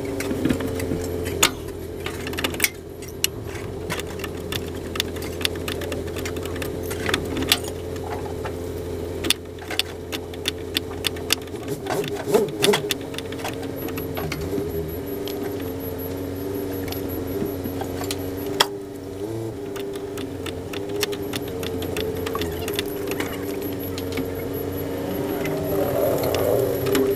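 Metal hand tools clicking and clinking against fuel hose clamps and fittings under a car while the fuel hoses are undone, in many scattered sharp clicks. A steady hum runs underneath.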